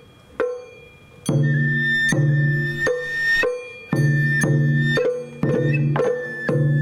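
Sawara-bayashi festival music: two single drum strokes, then about a second in the full hayashi ensemble comes in, a high bamboo flute melody over a steady beat of drums.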